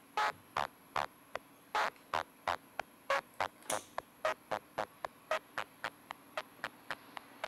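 Circuit-bent Yamaha PSS-30 toy keyboard playing a pulsing pattern of short, harsh, distorted hits through a lo-fi filter-and-distortion bend. The pulses come at about two and a half a second and speed up toward the end.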